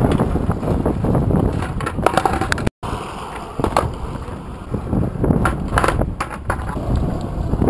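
Skateboard wheels rolling over rough asphalt with a steady rumble, broken by several sharp clacks as the board is popped and lands during flatground trick attempts. The sound cuts out for a split second about a third of the way in.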